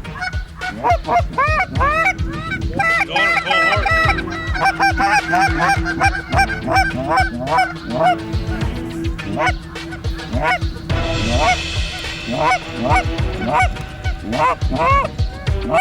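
Canada geese honking, with many short calls overlapping in quick succession throughout.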